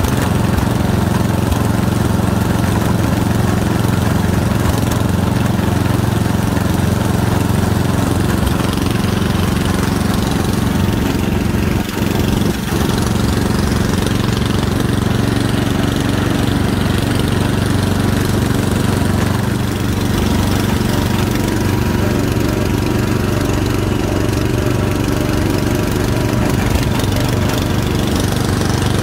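Wheel Horse garden tractor engine running steadily while under way along a trail, heard up close from the driver's seat, with a brief dip about twelve seconds in.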